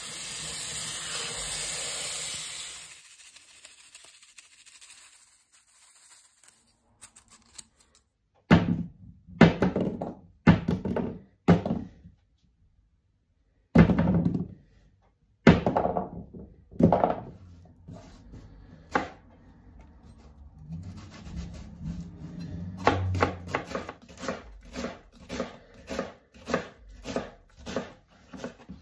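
Tap water running into a stainless steel colander of vegetables, stopping about three seconds in. Later come several loud single knife strokes on a wooden chopping board. From about two-thirds of the way through, a chef's knife chops onion on the wooden board at about two strokes a second.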